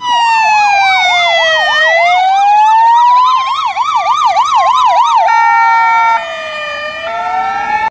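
Several ambulance sirens sounding at once: a slow rising and falling wail overlapped by a fast warbling yelp. About five seconds in the yelp gives way to a two-tone hi-lo pattern.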